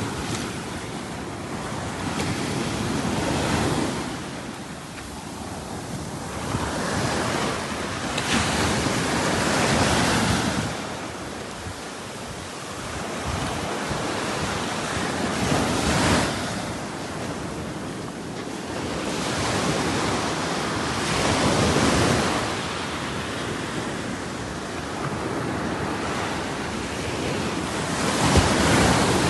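Ocean waves breaking on a shore, each wave swelling into a rushing hiss and then fading, about one every six seconds.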